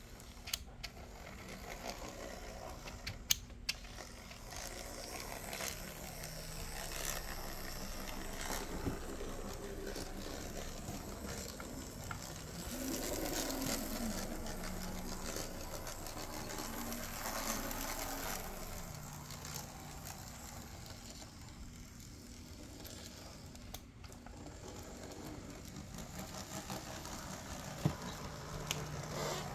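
Märklin Z-scale V36 diesel model locomotive running on its test loop: the tiny electric motor and gear train whirring with a light mechanical rattle. The whirr grows louder and wavers in pitch around the middle, with a few sharp clicks.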